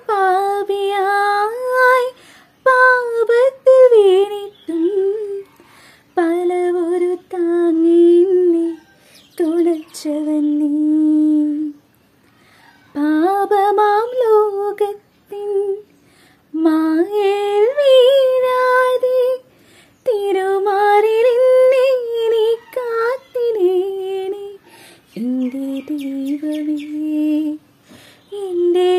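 A woman singing a slow melody on her own, in phrases of long held notes that waver in pitch, broken by short pauses.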